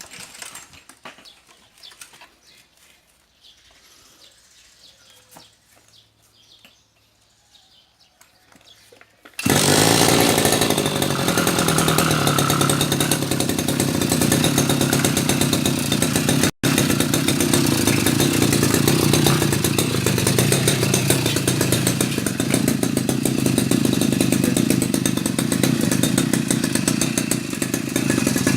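Two-stroke brush cutter engine, run without its air filter, starting abruptly about nine seconds in after some faint clicks, then running steadily.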